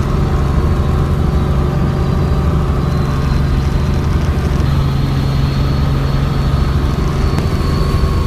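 Helicopter in flight heard from inside the cabin: a loud, steady drone of engine and rotor with a strong low hum.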